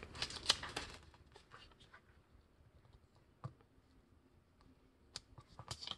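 Faint rustling and soft taps of a paper sticky note being folded in half by hand and creased against a tabletop. Soft rustles in the first second, a single sharp tick about halfway, and a few more ticks near the end.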